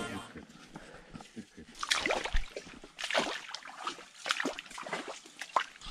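Water splashing and sloshing in irregular short splashes, starting up thickly about two seconds in.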